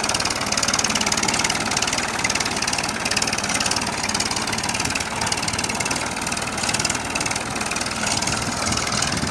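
Massey Ferguson 1035 DI tractor's three-cylinder diesel engine running steadily while pulling a tine cultivator through the soil.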